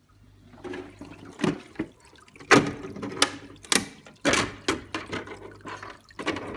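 Aquarium water splashing and gurgling in irregular bursts over a low steady hum.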